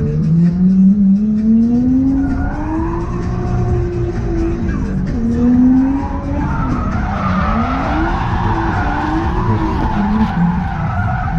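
Nissan Skyline ER34's straight-six engine revving up and down repeatedly through a drift, heard from inside the cabin. Tyres squeal and skid, most heavily from about seven to ten seconds in.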